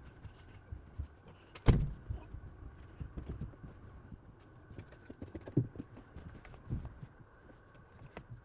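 Scattered knocks and thumps of objects being handled, with one louder thump about two seconds in, over a faint steady hum.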